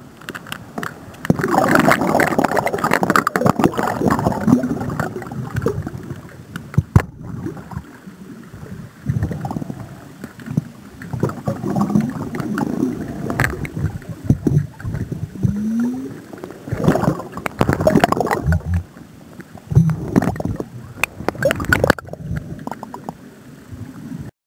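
Underwater camera housed on the end of a landing-net pole, picking up muffled surges of churning water and bubbling in irregular waves, with scattered sharp knocks as the pole moves in the swell against the rock.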